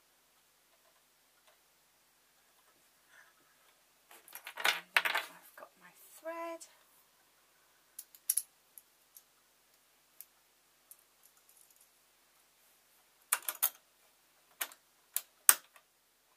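Small clicks and rattles of sewing-machine parts being handled while the machine is rethreaded by hand. A rattling cluster comes about four seconds in, and scattered sharp clicks follow, several in quick succession near the end. The motor is not running.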